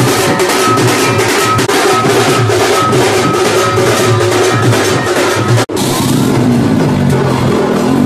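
Procession drumming on large two-headed barrel drums (dhol), a fast even beat with a repeating higher tune over it. About two-thirds of the way through the drumming cuts off abruptly and a noisier hubbub with a rising tone follows.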